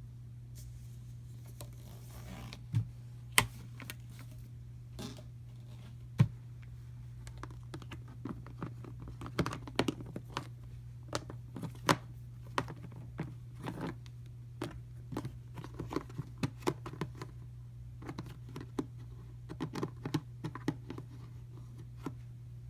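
Scattered clicks, taps and short scrapes of things being handled, busier in the second half, over a steady low hum.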